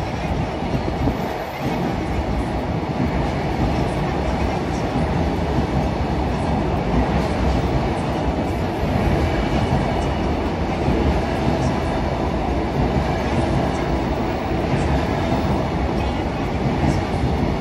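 Train running on the rails: a steady rumble of wheels and running gear that holds through, with a short dip about a second and a half in.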